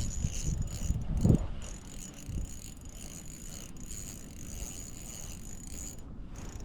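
Fishing reel whirring as a hooked bass is reeled in, over low wind rumble.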